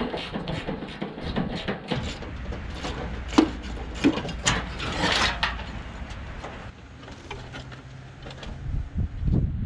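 Hand ratchet clicking as bolts are worked loose on an air-cooled VW engine during removal, with metal tool knocks and one sharp clink about three and a half seconds in.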